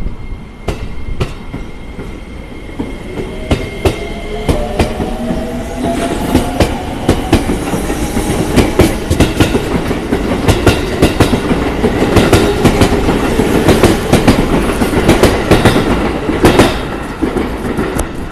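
JR East 205 series 5000 electric commuter train pulling out and accelerating past. Its inverter-driven traction motors whine in several tones rising together over the first half. The wheels then clack over rail joints, the clacks coming faster and thicker as the cars go by.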